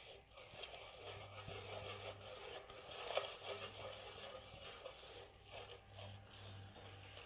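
Fingers mixing a gritty chilli powder, salt and garlic paste marinade in a stainless steel bowl: faint, continuous rubbing and scraping against the metal, with one louder scrape about three seconds in.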